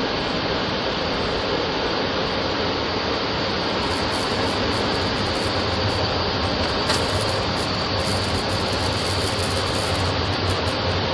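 Touch-free car wash dryer blowers running, a steady loud rush of air heard from inside the car's cabin.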